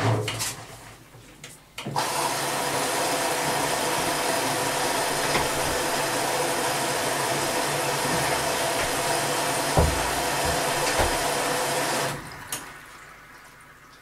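Whirlpool Primo 1406 UM washing machine taking in water for its rinse: the inlet valve opens abruptly, water rushes into the machine with a steady hiss for about ten seconds, then the valve shuts it off abruptly. A couple of low thumps come near the end.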